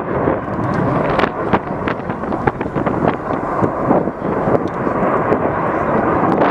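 Loud jet noise from an RAF Eurofighter Typhoon's two Eurojet EJ200 turbofan engines as the fighter flies its display: a steady rushing noise with frequent crackles.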